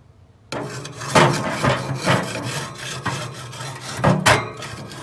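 A wooden paddle grill scraper scraping back and forth across metal grill grates, a loud rasping in repeated strokes that starts about half a second in.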